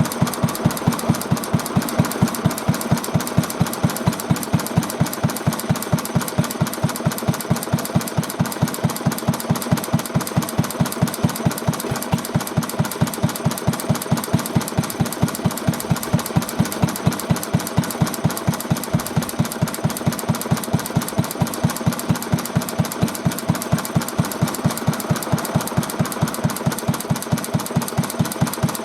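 Vintage Japanese single-cylinder stationary engine (hatsudoki) running steadily on a test run, its connecting-rod bearing shims freshly adjusted. The exhaust beat is quick and even.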